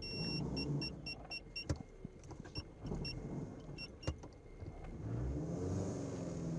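Car's parking-sensor warning beeping inside the cabin: one long tone at first, then short high beeps about four a second, breaking off and coming back in two shorter runs of beeps, the sign of an obstacle close to the car. Low engine and road rumble runs underneath.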